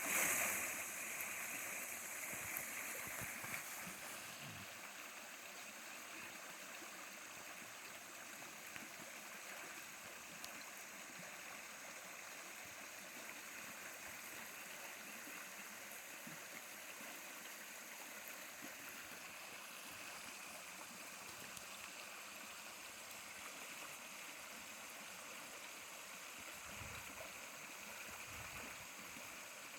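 Mountain stream running steadily, a little louder in the first few seconds.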